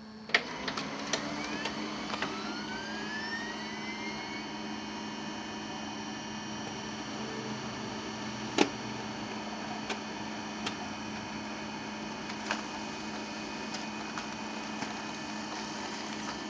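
HP LaserJet 5M laser printer starting a print job. It opens with a loud click, then its motors spin up with rising whines over the first few seconds. After that the mechanism runs steadily, with a constant hum and occasional sharp clicks as the page feeds through.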